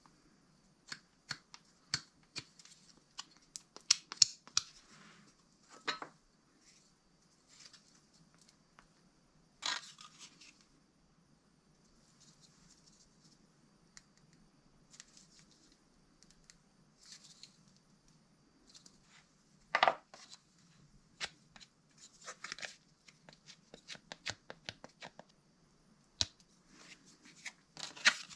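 Hand work spreading epoxy glue with a plastic spatula onto knife-handle liners and a wooden scale: intermittent scraping and scratching, with clicks and light knocks as the pieces are pressed together and set down on the wooden workbench.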